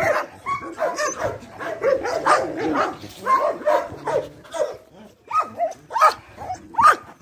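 Dogs barking, yipping and whining in quick, short, overlapping calls throughout.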